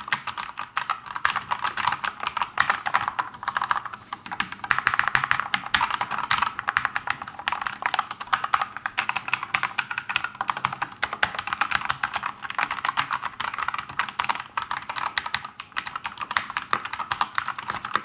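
Fast, continuous typing on a Keychron mechanical keyboard fitted with lubed linear switches: a steady stream of muted clacks, made mostly as each key bottoms out against the frame rather than by the switch itself.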